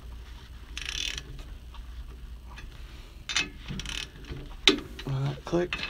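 Torque wrench ratcheting on the U-bolt nuts of a Safe-T-Plus steering stabilizer bracket: a short rattle of ratchet clicks about a second in, then a run of metallic clicks in the second half, the sharpest just before the end.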